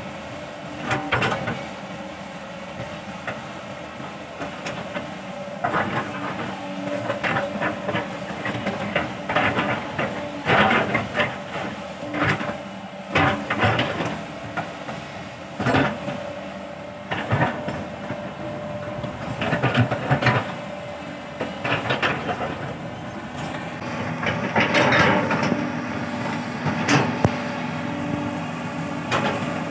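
Sumitomo hydraulic excavator's diesel engine running steadily under working load, with irregular metallic clanks and knocks from the bucket and arm as it digs and shifts earth.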